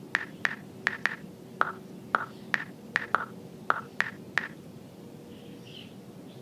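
Smartphone keyboard key-tap clicks as a search query is typed: about a dozen quick, unevenly spaced taps that stop about two-thirds of the way in.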